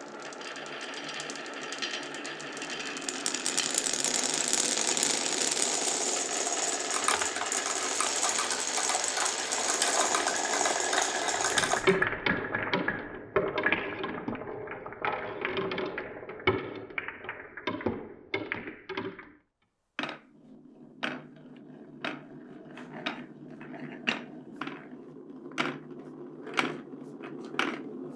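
Many glass marbles rolling and clattering down a wooden marble run as a dense, continuous rattle, which thins out about twelve seconds in. After a brief break, single marbles clack one at a time, about once a second, over a steady rolling sound.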